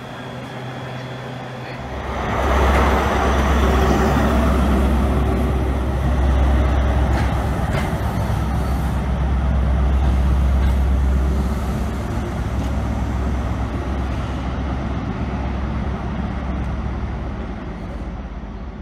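A quiet electric-train hum, then, about two seconds in, the loud, steady low drone of a Class 43 HST diesel power car's engine (MTU 16V4000) working as it pulls away. The engine noise slowly fades over the last several seconds as the train draws off.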